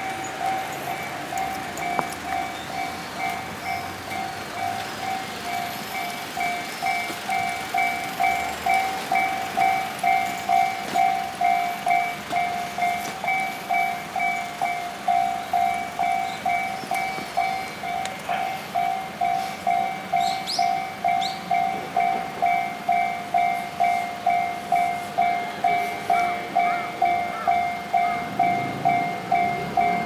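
Japanese railway level-crossing warning bell ringing its steady two-tone 'kan-kan' alarm, just under two strikes a second, louder from about eight seconds in. It signals that a train is coming and the crossing is closed.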